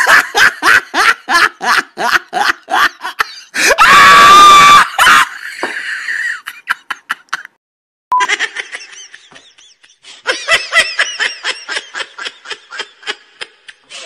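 Laughter sound effects played one after another. A fast run of loud "ha-ha-ha" laughter breaks into a long high squeal about four seconds in, then trails off. After a brief silence around eight seconds, another fast run of laughter begins.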